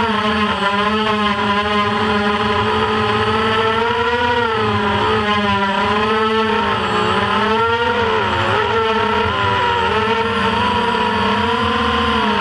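FPV quadcopter's brushless motors and propellers whining, recorded on board, the pitch rising and falling over and over as the throttle changes.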